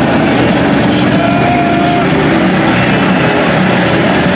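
Small engine of a kids' mini monster truck running hard under load, straining against a tug-of-war strap.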